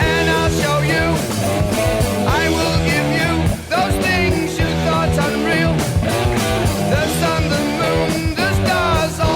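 Rock music with electric guitar, bass and drums, with a singing voice or bending lead guitar above them.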